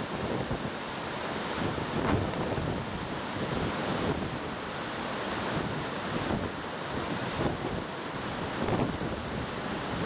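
Waterfall pouring into its plunge pool: a steady rush of falling water. The falls are running full and muddy after rain.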